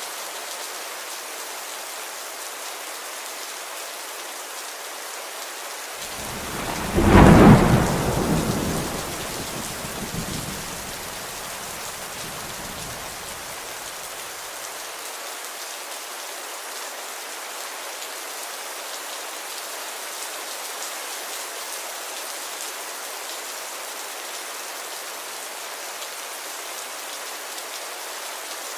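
Steady rain falling, with one thunderclap about six seconds in that peaks loudly and then rumbles away over the next several seconds.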